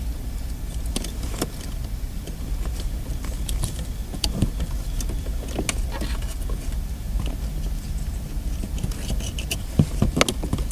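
Scattered small clicks and rattles of plastic wiring-harness connectors and cables being handled and plugged together, over a steady low hum.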